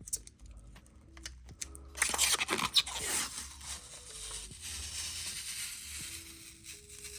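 Plastic packaging being torn and crinkled, starting about two seconds in with a few sharp rips, then a steady rustle, over background music.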